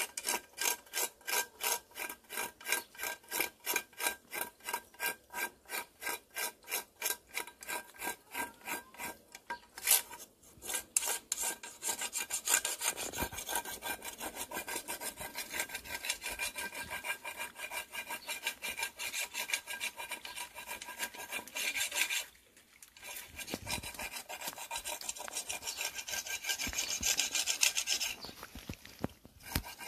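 Cicadas singing: a high rasping buzz that pulses very regularly, about two to three times a second, then runs on as a steadier continuous buzz from about twelve seconds in, breaking off briefly once past the twenty-second mark.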